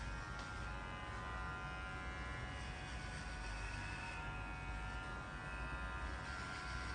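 Electric hair clippers running with a steady buzz, shaving close against the scalp.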